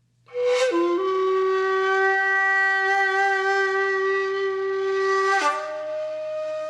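A wind instrument playing music: one long held note that starts suddenly, dips and settles in its first moment, then jumps to a higher held note near the end.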